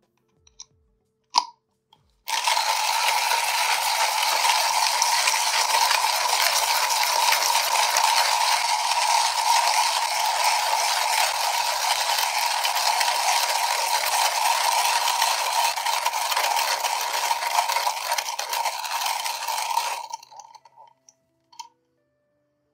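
Coffee beans being ground in a Comandante C40 hand grinder: a continuous dense crunching that starts about two seconds in, after a single click, and stops a couple of seconds before the end.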